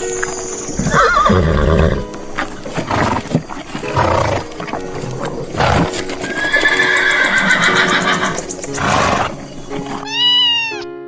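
Horse neighing over background music, with a long whinny in the second half.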